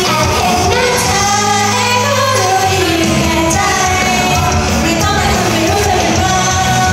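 Japanese idol pop song with female vocals over a band backing track, from a live stage performance.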